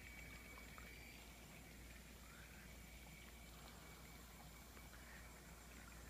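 Near silence: faint outdoor background with a low steady hum and a few faint ticks.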